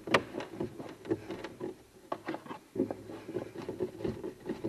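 Hand screwdriver driving a screw into the wooden frame of a foosball table: irregular creaks and clicks as the screw is turned by hand, with a sharp click just after the start.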